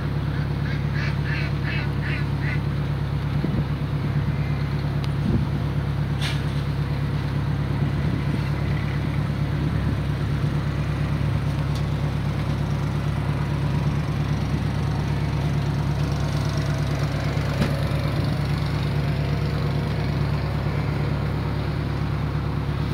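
A houseboat's engine runs with a steady low drone. About a second in, ducks quack several times in quick succession.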